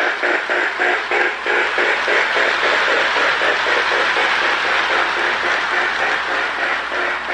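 Marx O-gauge tinplate steam locomotive with a sound-unit tender running on track with a long train of log dump cars: rhythmic chuffing, about four to five beats a second, over a steady rattle of wheels on rail. The beats blur together for a few seconds mid-way.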